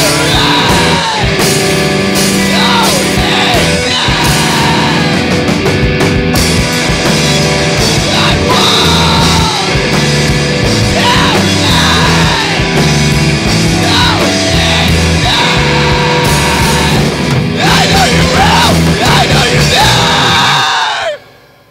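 Loud rock song played by a full band, with yelled vocals over it. The music cuts off abruptly near the end.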